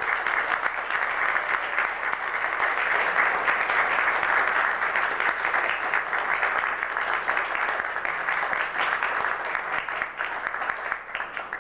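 Audience applauding steadily, thinning out slightly near the end.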